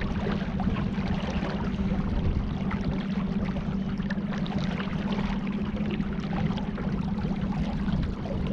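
A boat's motor humming steadily at an even pitch, under a constant wash of water and wind noise.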